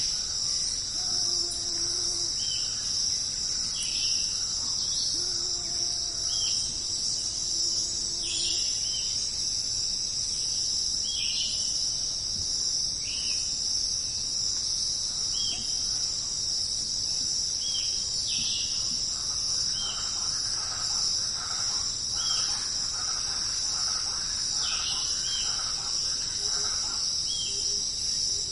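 Steady, high-pitched chorus of crickets and other insects. Short falling chirps from another animal repeat about every one and a half to two seconds, and a patch of quick pulsed calls joins in during the last third.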